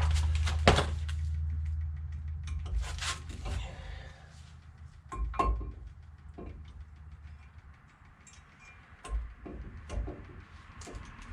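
A new brake caliper being picked up and handled: irregular clicks and knocks, the sharpest about half a second in, with a low rumble fading away over the first couple of seconds.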